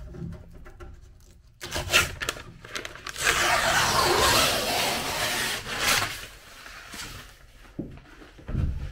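A strip of tape being peeled off freshly fiberglassed plywood joints: a few short rips, then one long tearing pull lasting about three seconds. A low bump near the end.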